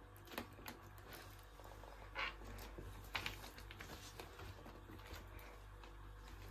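Faint scattered rustles and light clicks from a cat shifting about on a leather backpack and wooden chair, over a steady low hum.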